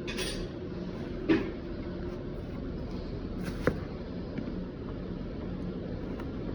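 Two sharp clinks of hard objects being handled, about a second in and again near the middle, over a steady low workshop hum.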